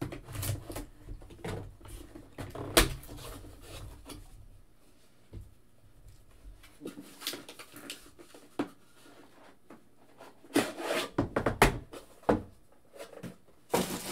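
A cardboard trading-card box and its metal tin being handled on a table: irregular rustling, scraping and small knocks, with one sharp knock about three seconds in and a cluster of clatter near the end.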